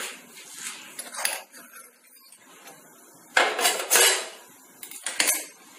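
Kitchen dishes and a spoon clinking and knocking against bowls on a counter: a few separate knocks, then a longer clatter a little past halfway and one more knock near the end.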